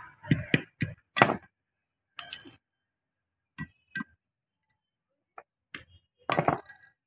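Hammer striking the steel gear lever of a John Deere 5310 tractor to drive out its worn lock pin: four sharp metal knocks in quick succession, then a few more spaced clinks and taps, some with a brief high ring.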